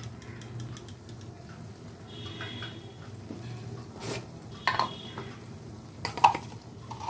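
A cooking utensil stirring gravy in a pan, scraping and knocking against it a few times about halfway through and near the end, over a faint sizzle of the gravy simmering on low heat.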